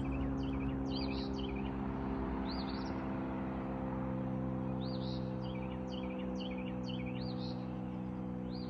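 Small birds chirping in quick series of short, arched high notes, in two bouts with a lull about three to five seconds in, over a continuous low droning hum.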